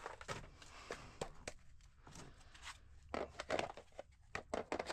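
Rummaging and handling of objects: a string of irregular clicks, knocks and rustles, with a cluster of louder knocks a little past the middle.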